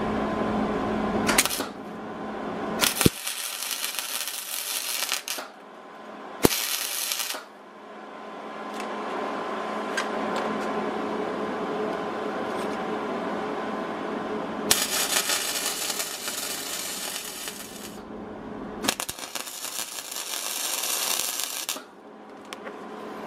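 Wire-feed welder tack-welding a steel gas-tank bracket: four bursts of crackling, hissing arc, each one to three seconds long. A steady low hum runs underneath.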